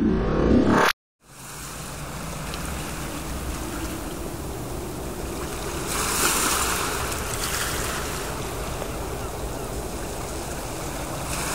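Ocean surf and wind: a steady wash of breaking waves and wind noise, swelling about six seconds in. Music cuts off abruptly about a second in, just before the surf starts.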